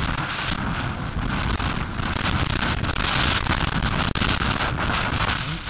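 Wind buffeting the microphone of a camera on a Suzuki RM250 two-stroke motocross bike ridden at speed, a rough rushing noise that mostly covers the engine.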